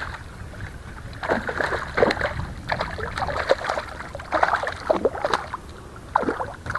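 A hooked crappie, about twelve inches long, splashing at the surface beside a kayak as it is reeled in and landed: a run of irregular splashes lasting several seconds.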